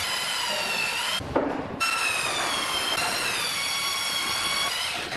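A power tool's electric motor whines in two long runs, stopping briefly with a knock a little after a second in, its pitch sagging under load.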